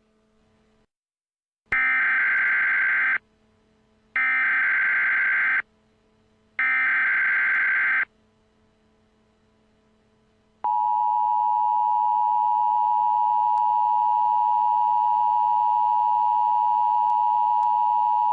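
Emergency Alert System tones: three bursts of the SAME digital header, each about a second and a half, a warbling data screech. About ten and a half seconds in, the steady two-tone EAS attention signal starts and holds, a harsh dual-pitched drone announcing a new alert.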